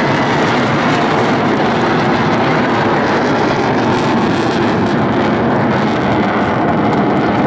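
Jet engines of military fighter jets flying overhead in a formation display: a loud, continuous, even noise.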